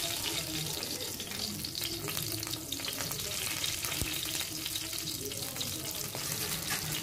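Fresh curry leaf sprigs sizzling in hot oil in a pan, a steady hiss full of fine crackles.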